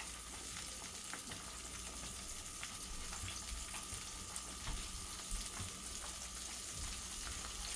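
Battered red snapper deep-frying in hot oil: a steady sizzle with many small crackles.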